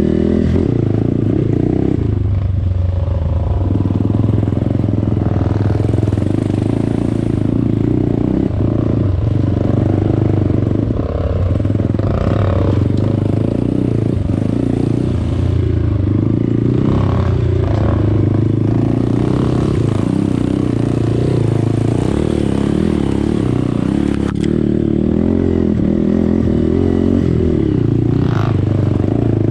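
Off-road trail motorcycle engine running steadily and loudly, with small rises and dips in revs and some clatter.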